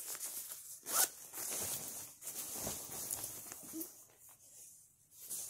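Zipper on a winter jacket being worked, along with the rustle of the jacket's shell fabric as it is handled, and one sharp click about a second in.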